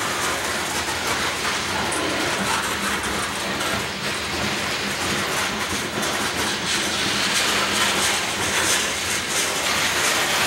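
Freight train of covered hopper cars rolling past close by: steady rumble of steel wheels on rail, with a run of clicks as the wheels cross the rail joints.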